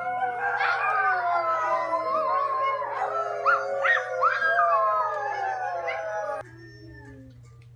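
Several overlapping dog-like howls, long and slowly falling in pitch, with a few short yips in the middle; the howling cuts off suddenly about six seconds in.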